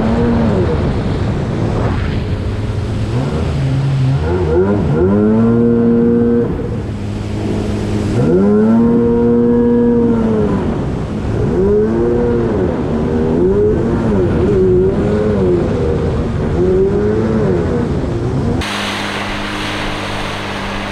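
Yamaha GP800R jet ski's two-stroke twin engine run hard, its pitch repeatedly climbing and sagging as it loses power and picks up again. Near the end it drops to a low, steady note under a sudden hiss. The rider takes the power loss at sustained wide-open throttle for fuel starvation, perhaps from old gas or low fuel.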